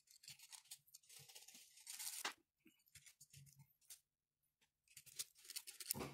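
Faint scratchy rasping of a needle file worked in short strokes across the thread of a Volcano 3D-printer nozzle, taking the thread down a few tenths of a millimetre so the heater block will slide on. The strokes come in a busy run early on, thin out in the middle, and pick up again near the end.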